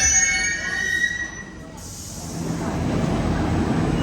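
Hyundai Rotem metro train: a high squeal of several tones from the train fades out in the first second. After a brief lull and a hiss, a low rumble rises from about two and a half seconds in.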